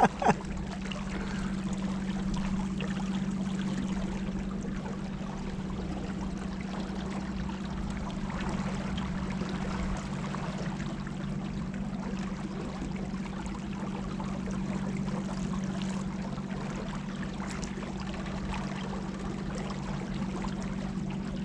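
Boat motor running steadily, a constant drone, with water rushing and splashing along the hull.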